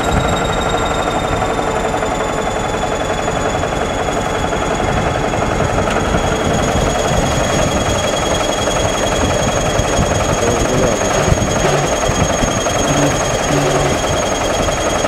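Crawler bulldozer's diesel engine running under load with a dense, rapid clatter as the blade pushes earth and broken brick. A thin, steady high whine runs over it.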